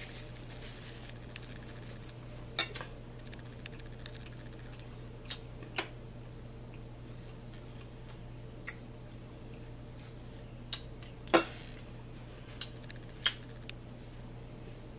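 Eating sounds at a dinner table: scattered sharp clicks and taps of plates, cutlery and chewing, the loudest about eleven seconds in, over a steady low hum.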